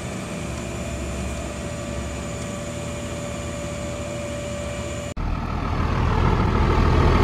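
A flatbed tow truck's engine running as its winch pulls a car up the tilted bed, with a steady whine over the engine. After a sudden cut, a fire engine's diesel engine runs with a louder, deeper rumble.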